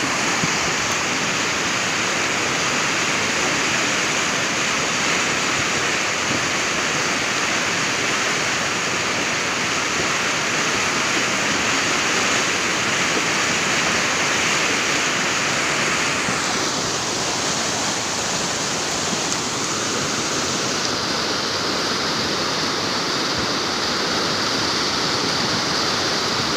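Muddy floodwater rushing fast down a stream channel in spate, a steady continuous rush of turbulent water as a flash flood comes through.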